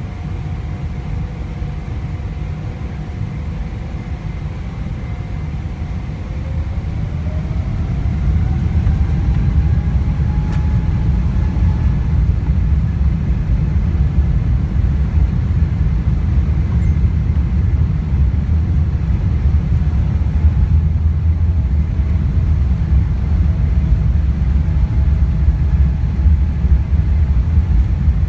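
Boeing 777-300ER's GE90-115B engines spooling up to takeoff thrust, heard from inside the cabin: a whine rises over several seconds starting about six seconds in. A loud low rumble builds about eight seconds in and holds steady as the airliner accelerates down the runway.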